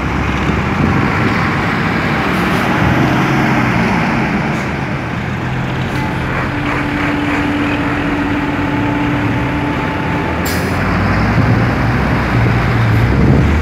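Large trucks driving slowly past one after another with their engines running. A steady tone is held for about three seconds around the middle, and a brief sharp hiss follows just after it.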